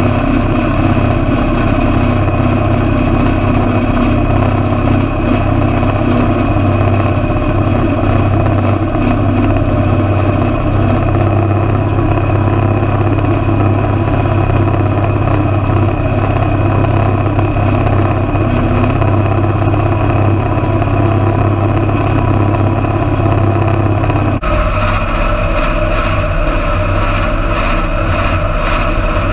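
Tractor engine running steadily while pulling a ten-wheel hay rake. About 24 seconds in the engine sound changes abruptly to a different tone and stays steady after.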